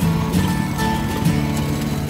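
Background music played over the footage: acoustic guitar with held, shifting notes.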